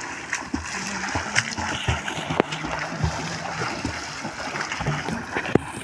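Water splashing irregularly as people swim and kick in a pond, with scattered sharp splashes.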